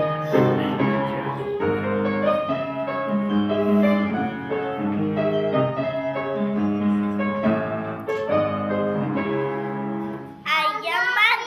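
Piano-style keyboard music playing a melody over steady bass notes; about ten and a half seconds in, a voice comes in over it.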